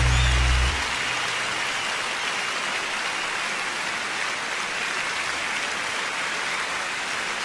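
A band's last chord cuts off less than a second in, followed by a large audience applauding steadily.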